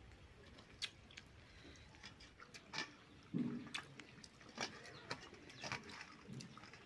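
Faint sounds of eating by hand from steel plates: scattered small clicks and taps as fingers mix and scoop rice against the metal, and a brief low sound about three seconds in.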